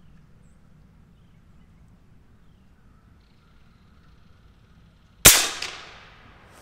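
A single shot from a suppressed AirForce Texan .457 LSS big-bore PCP air rifle, about five seconds in: one sharp, loud bark that trails off over about a second.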